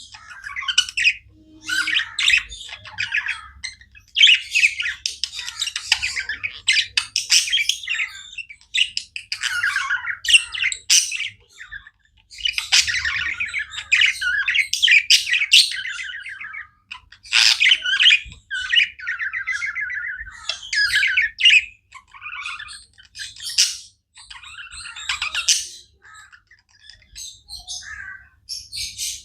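Budgerigars chattering: busy warbles, chirps and squawks that come in bursts a second or two long with short breaks between them.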